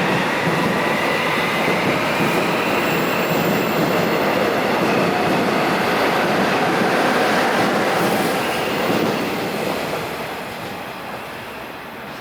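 A Korail Class 341 electric multiple unit with third-generation IGBT VVVF inverters pulling away: a traction-motor whine rising in pitch over the rumble and clatter of wheels on rails. It fades after about nine seconds.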